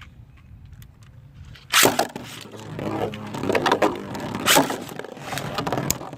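Two beyblades launched with a ripcord launcher with a sudden loud rip about two seconds in, then spinning and clashing in a plastic stadium, with a whir and sharp clicks of contact.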